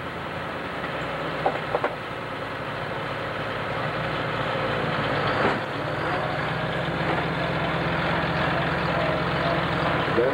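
International 3688 super stock pulling tractor's engine running steadily and gradually getting louder, with a couple of sharp clicks about a second and a half in.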